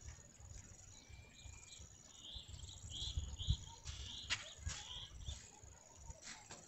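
Insects trilling in high, pulsing bursts, with a run of short bird-like chirps in the middle and a few sharp clicks about four seconds in, over a faint low rumble.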